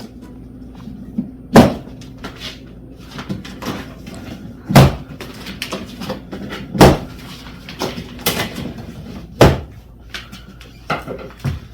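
Loud thumps and knocks, four big ones a few seconds apart with softer knocks and rustling between them, from the cardboard shipping box and packing of an electric bike being handled and opened.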